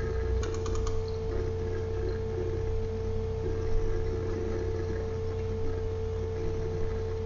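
Steady background hum and hiss with a constant mid-pitched tone over a low hum, and a quick run of faint clicks about half a second in.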